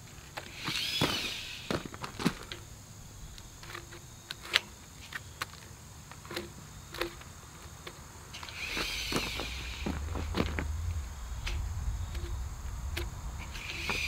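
Footsteps crunching on gravel with scattered sharp clicks as a tape measure is run along a log. Three short high calls that rise and fall sound about 1, 9 and 14 seconds in, and a low rumble comes in a little past halfway.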